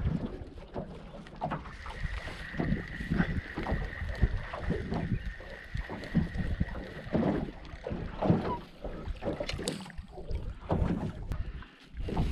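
Wind buffeting the microphone and small waves slapping irregularly against the side of a small fishing boat. A thin, steady high tone runs from about two seconds in until past the middle.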